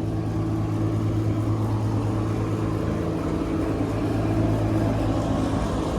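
Steady low mechanical hum of a running motor, holding one constant pitch with no change.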